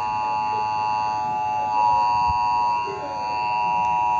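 Emergency Alert System attention tone: a steady electronic alarm tone that precedes a broadcast tornado warning.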